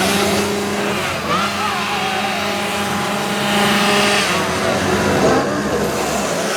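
Chainsaw engine running at a steady high pitch, then breaking off about four seconds in, with voices around it.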